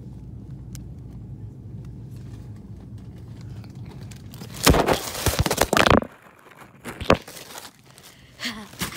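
Plastic wrapping on packs of toilet paper crinkling loudly for about a second, starting about halfway through, then a click and a few smaller rustles near the end. Before that there is only a low steady hum.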